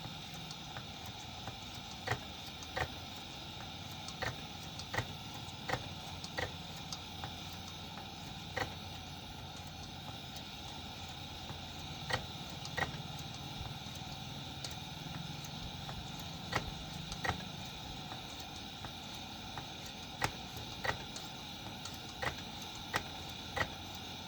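Standard 500 CP pressure lantern burning with a steady hiss, broken by sharp irregular ticks every second or so.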